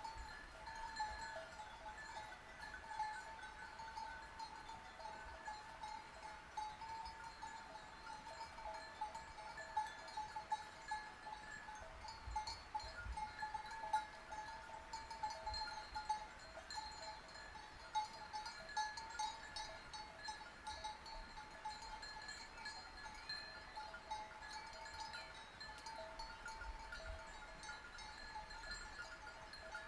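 Bells worn by a flock of sheep clinking continuously, several ringing at once in an uneven jangle.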